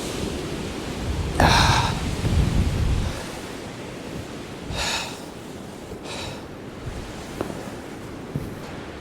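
Blizzard wind buffeting the microphone with a low rumble, heaviest in a gust about a second and a half in. Three short hissing swishes come at about one and a half, five and six seconds in.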